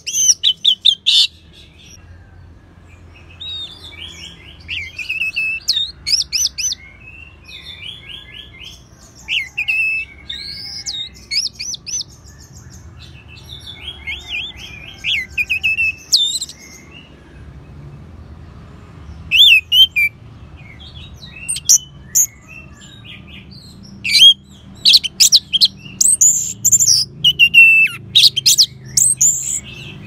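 Orange-headed thrush (anis merah) in full song: bursts of fast, varied phrases of quick trills and sliding whistles, separated by short pauses and coming thickest near the end.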